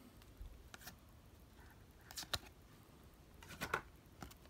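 Trading cards being flipped through by hand: a few short, faint snaps and slides of card against card over quiet room tone.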